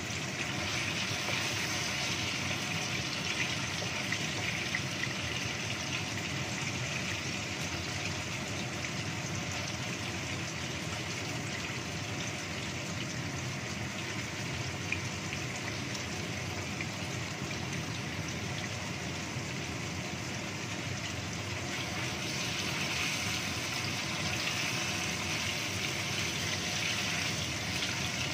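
Cubes of raw tofu sizzling steadily in hot oil in a wok. The sizzle is a little louder in the first few seconds and again in the last few, when the cubes are turned with a wooden spatula.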